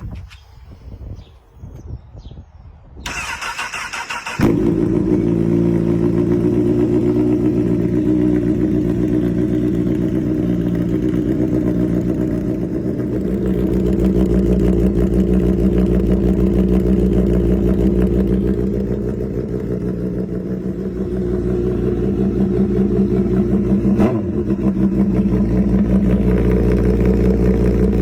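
2010 Honda CBR1000RR Fireblade's inline-four engine, on a Racefit aftermarket exhaust, cranked on the starter for about a second and a half, then catching about four seconds in and settling into a steady, loud idle.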